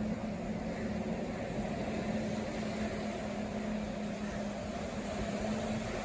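A steady motor hum: a constant low drone over an even hiss, with no change in pitch or level.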